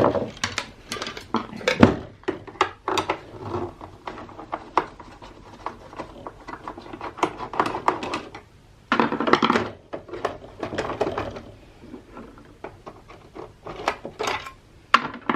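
Hard plastic housing parts and tools of an old defibrillator being handled during disassembly: a run of irregular clicks, knocks and clatter, with a few longer scraping stretches around the middle.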